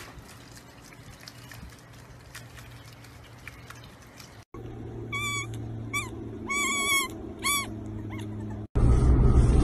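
A baby goat bleating: six short, high-pitched cries, each rising and falling, over about three seconds. Just before the end this cuts to a loud, steady low rumble.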